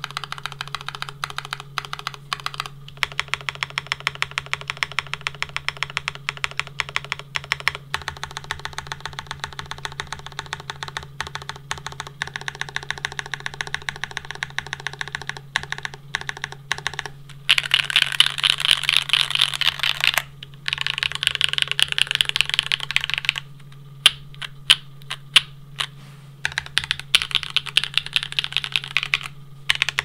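Typing on a Geonworks W1-AT mechanical keyboard with a top-mounted carbon fiber plate, lubed Gateron Raw switches and GMK keycaps: a steady run of keystrokes across the numpad and modifier keys. Past the halfway mark the strokes come louder and faster, broken by a short pause and a few single, separate keypresses.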